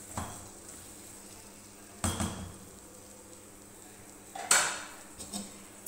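A spatula stirring okra in a nonstick cooking pot, with a few separate clatters of utensil against the pot, the loudest a little after the middle, over a faint steady sizzle.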